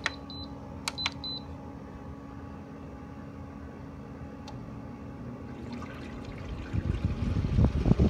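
An LG window air conditioner's control panel beeps a few times as it is switched on, then the unit's fan runs with a steady hum while the compressor has not yet kicked in, held off by its start delay. About seven seconds in, a louder gusty rushing of air on the microphone sets in.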